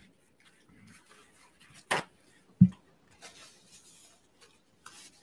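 A man hiccuping about two seconds in, the hiccups brought on by eating super-hot pepper sauce, then soft paper towel rustling as he wipes his mouth.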